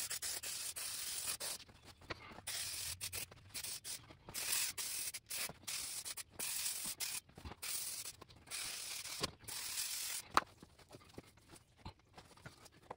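Aerosol headliner spray adhesive hissing from the can in many short bursts for about ten seconds, ending with a sharp click.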